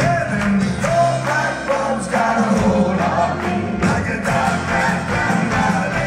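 Live band music: a man singing lead over strummed acoustic guitar, electric bass and drums.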